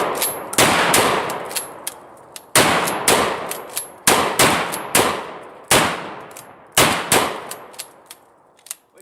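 Rapid volley of gunshots from a shotgun and a .44 Magnum revolver firing together: about eight loud shots at irregular intervals, each trailing off over about a second, with smaller sharp cracks between them.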